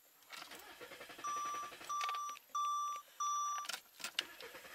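A 2001 Saab 9-5's in-car warning chime beeps four times, evenly, about one and a half beeps a second, with the ignition on after the engine has stalled. A faint rapid ticking starts just before the beeps.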